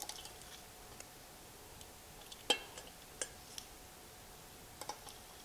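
Metal garlic press squeezed to mince garlic cloves, giving scattered light clicks and clacks, the sharpest about two and a half seconds in.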